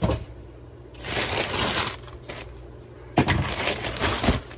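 Newspaper packing crumpling and rustling as it is handled, in two spells: one about a second in and a sharper one starting about three seconds in.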